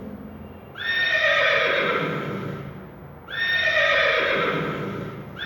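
Horse neighing: two whinnies of about two seconds each, each falling in pitch, with a third starting right at the end.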